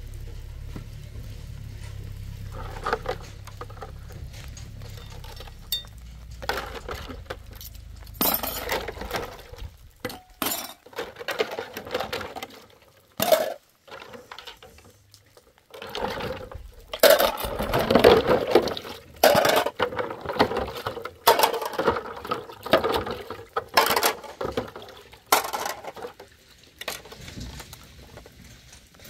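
Dishes being washed by hand: a stainless steel bowl and plates clinking and clattering against each other and the plastic basins, in irregular bursts that come thickest in the second half.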